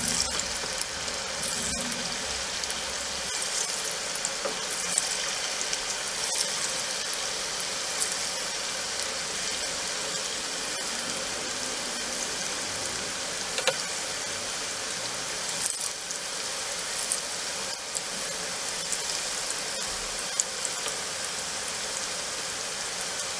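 Moong dal pakodas deep-frying in hot oil in a wide pan: a steady sizzle with scattered crackles and pops as spoonfuls of batter are dropped in.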